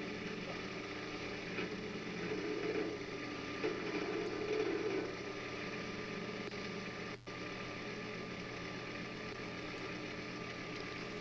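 Mini excavator's diesel engine idling steadily.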